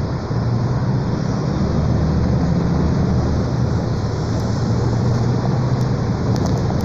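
Mercedes-Benz O-500 U city bus under way, its diesel engine running with a steady low hum and road and body noise, heard from inside near the front. It gets a little louder about half a second in.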